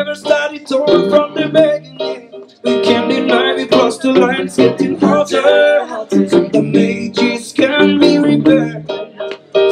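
Live reggae band playing, with guitar and keyboard and short rhythmic strokes.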